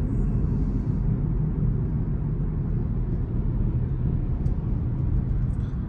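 Steady low rumble of a car being driven, road and engine noise heard inside the cabin.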